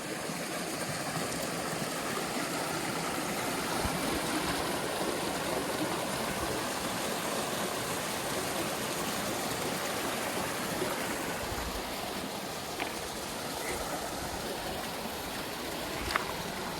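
Steady rush of flowing water from a small stream.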